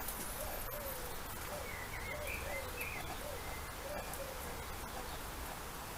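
Garden bird cooing in a low, repeated call, about two notes a second, with a brief higher chirping from another bird about two seconds in and a few faint clicks.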